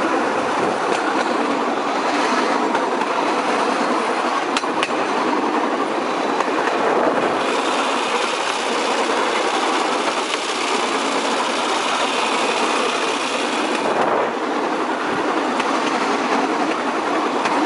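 Bamboo train (norry) running along the rails: a steady, noisy clatter of its small engine and its wheels rattling over the uneven track. A couple of sharp knocks come about four and a half seconds in.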